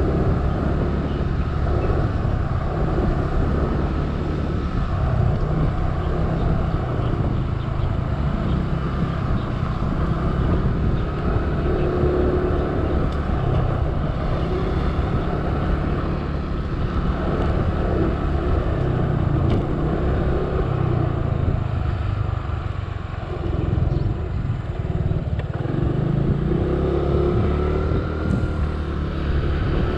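Motor scooter riding along, heard from the scooter itself: its small engine running with a heavy low rumble of road and wind noise, the engine note rising briefly a couple of times.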